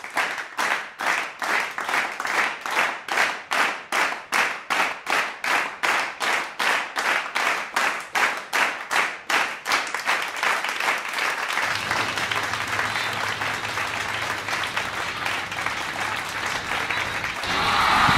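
A crowd clapping in unison at nearly three claps a second, which breaks up after about ten seconds into a steady wash of applause that swells near the end.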